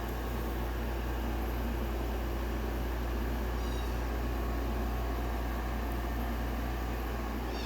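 Steady low mechanical hum with an even hiss, like a fan or air-conditioning unit running, and a faint kitten mew about three and a half seconds in.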